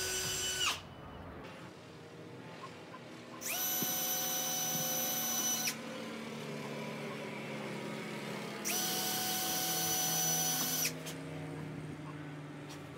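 Cordless drill-driver whining at a steady speed in three runs, driving screws into a wooden mounting board: the first run stops under a second in, then two runs of about two seconds each, separated by pauses.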